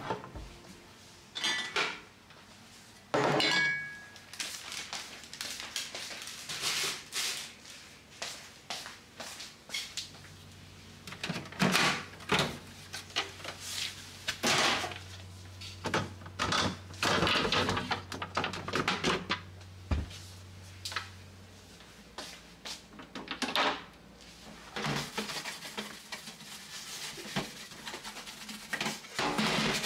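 Household items being handled while a refrigerator is organised: a run of knocks, clicks and clatters from containers, drawers and doors, with a low steady hum through the middle stretch.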